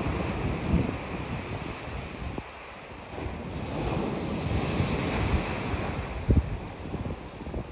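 Small sea waves breaking and washing on a sandy beach, a steady rushing surf that swells around the middle. Wind buffets the microphone, with a few low bumps about a second in and near the end.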